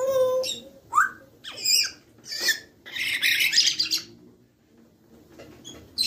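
African grey parrot calling: a short whistle, a quick rising whistle about a second in, a few short calls, then a harsh screech lasting about a second. It goes quieter after that.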